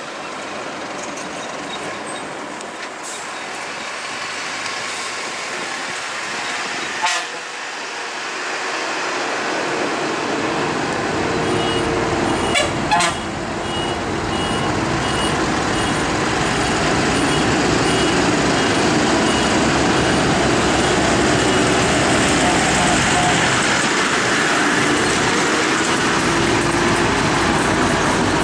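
Heavy trucks' diesel engines labouring up a hairpin bend, growing steadily louder as they come close and round the turn. Brief horn toots sound about seven seconds in and twice in quick succession near the middle.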